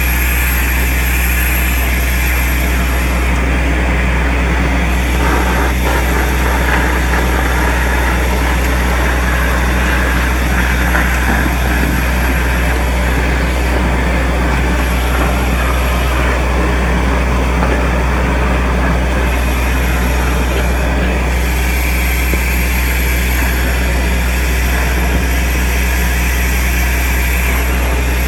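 Compact soil-vacuum machine running continuously, with air rushing through its suction hose and tube as earth is sucked up: a loud, steady drone over a dense rushing noise.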